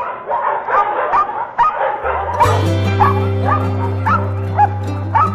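Several dogs barking and yipping over one another in quick, overlapping barks. About two and a half seconds in, a song's instrumental intro starts under them with a steady bass, and the barking carries on over it.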